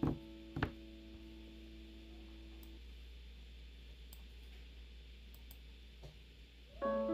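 Two sharp clicks about half a second apart, under the last sustained notes of background piano music, which fade out. A fainter click follows later, and the piano music starts again near the end.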